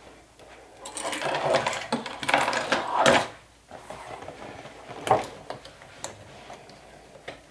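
Industrial walking-foot sewing machine stitching a seam for about two seconds, stopping a little past the three-second mark, followed by fabric being handled with a few light knocks.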